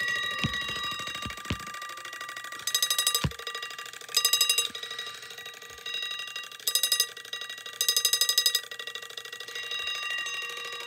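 A 1964 Westclox Big Ben alarm clock's alarm bell ringing steadily with a fast rattle. It swells louder four times, each for less than a second. There are a few knocks in the first second and a half.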